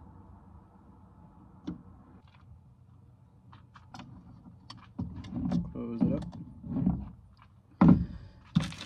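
Sandwich-making noises: soft clicks and rustling as bread, lunch meat and a plastic cheese package are handled, then two sharp clatters near the end.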